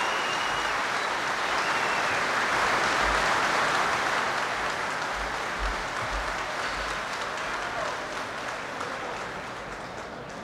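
A large crowd applauding, swelling over the first few seconds and slowly dying away toward the end.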